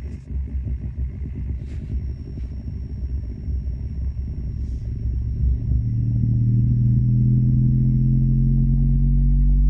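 Bass-heavy test track played through a portable Bluetooth speaker: a pulsing low rumble that builds into steady low droning tones, getting gradually louder from about halfway through.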